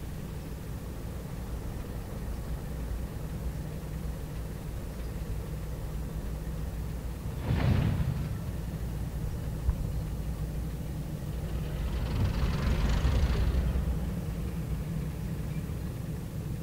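GrainCorp 48 class diesel-electric locomotives, with six-cylinder Alco 251 engines, running steadily at low power as the train creeps forward. A short louder whoosh comes a little under halfway through, and a longer hiss of about two seconds follows later.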